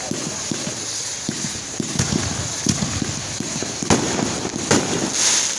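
Fireworks going off: a fast run of low thumps from shots being fired, with sharp bangs about two seconds in, about four seconds in and just before five seconds, over a steady high hiss.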